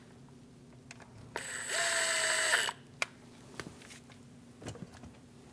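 A small power driver with a T20 bit runs for about a second and a half, snugging down the window switch's two screws, followed by a few light clicks of the tool and plastic parts.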